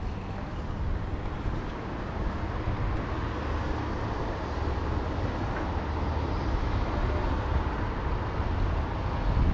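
Steady city street ambience: a low, continuous rumble of vehicle traffic.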